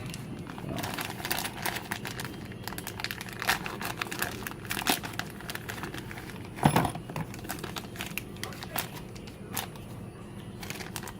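Plastic packaging crinkling and rustling while small welding-gun kit parts are handled, with scattered clicks and one louder knock about two-thirds of the way through.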